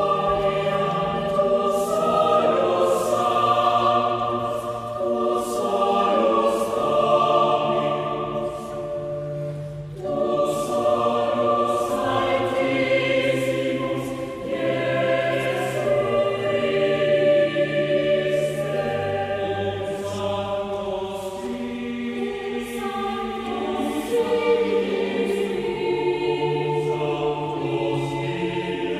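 Choir singing baroque sacred music in full sustained chords over a low bass line, the consonants of the words regular and distinct; the phrase breaks briefly about ten seconds in, then goes on.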